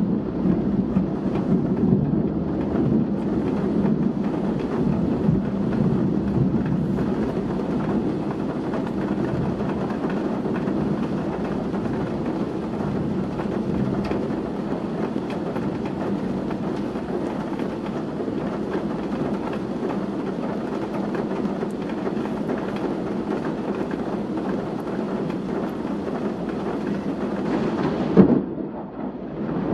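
Heavy rain falling in strong wind: a steady, dense rush, weighted to the low end. Near the end a brief loud burst, after which the rush drops away.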